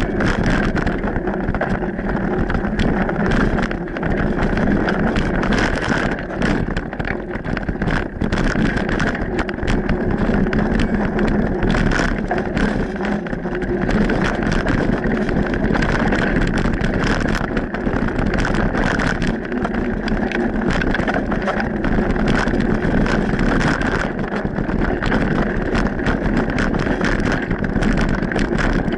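Mountain bike riding over a dirt singletrack: a steady rumble of tyres and wind on the microphone, with constant small rattles and clicks from bumps in the trail.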